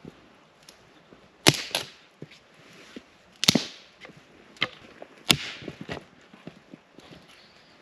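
Dry dead ash branches being snapped for firewood: a run of sharp cracks, the loudest about a second and a half, three and a half and five seconds in, with smaller snaps between.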